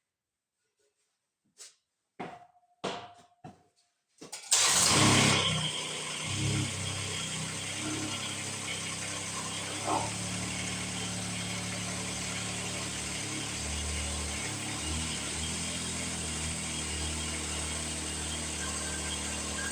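A few light knocks, then about four and a half seconds in an engine starts, loudest for the first second, and settles into a steady run.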